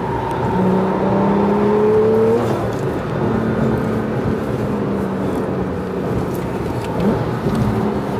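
2017 Porsche 911 Carrera S's twin-turbo 3.0-litre flat-six, heard from inside the cabin, rising in pitch under acceleration for about two seconds, then dropping back and running steadily over road and tyre noise, with a short rise in pitch near the end.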